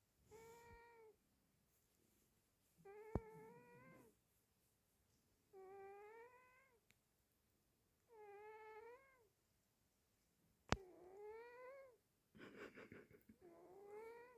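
A sleeping cat snoring, each breath carrying a faint whistling squeak: six squeaks, about one every two and a half seconds. Two sharp clicks come a few seconds in and again about eleven seconds in.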